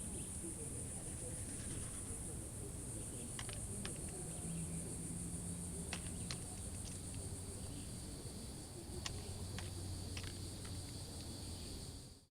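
Crickets or other night insects trilling steadily in a high pitch, with a few scattered sharp clicks and snaps. The sound cuts off abruptly near the end.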